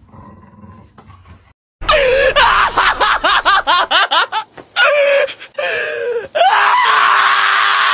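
Black-and-tan Shiba Inu screaming while held for a nail trim, starting about two seconds in. First a rapid run of wavering yelps, then one long, piercing scream held near the end.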